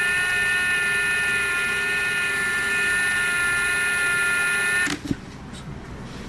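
Ridgid R86211 18V Octane brushless impact wrench running free on speed setting 3: a steady motor whine that rises briefly in pitch at the start, holds, then stops shortly before the end. It spins at a slow speed whatever setting is chosen, the tool's intermittent slow-speed fault.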